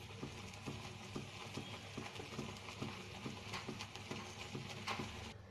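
Oats boiling in water in a pan: faint, irregular soft bubbling pops over a low hiss.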